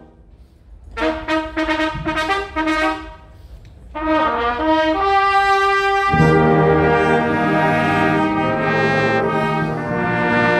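Brass band of trumpets and trombones playing ceremonial music. After a brief hush come short separate notes, then a phrase that builds until the full band with low brass comes in about six seconds in and holds loud sustained chords.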